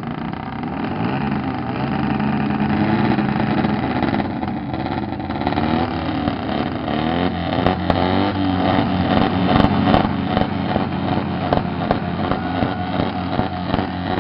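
Motorcycles with straight-through exhausts revving loudly, the engine pitch climbing and falling, with quick repeated revs in the second half.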